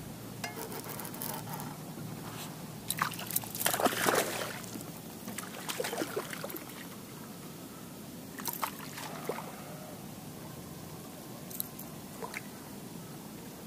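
A hooked fish splashing at the water's surface in several irregular bursts, the loudest about three to four seconds in, with smaller splashes around six and nine seconds in.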